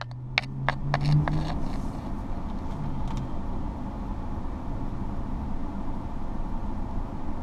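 Vehicle engine idling, heard from inside the cab as a steady low rumble, with a slight rise in engine pitch about a second in. A few sharp clicks sound in the first second and a half.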